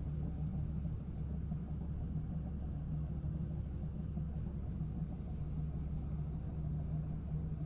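Engine running steadily at constant speed, a low even drone with no change in pitch, such as a firewood processor's engine at work.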